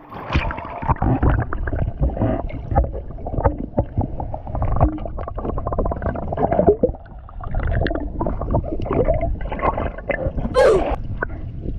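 Pool water sloshing, splashing and gurgling around several people holding their breath under water, with a brief cry about ten seconds in.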